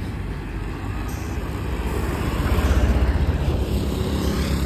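Road noise of a moving car heard from inside it: a steady low rumble of engine and tyres, swelling a little towards the middle and easing off again.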